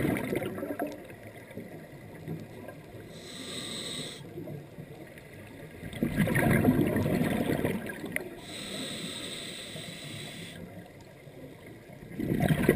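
Scuba diver breathing through a regulator underwater: a burst of bubbling exhaled bubbles about every six seconds, at the start, in the middle and at the end, with the hiss of the regulator on each inhale in between.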